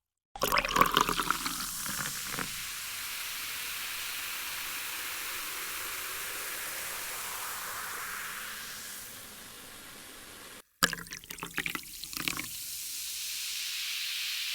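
A fizzy drink being poured into a glass: splashing at first, then settling into a steady fizzing hiss. About eleven seconds in, the sound cuts off and a second pour starts, splashing again before fizzing.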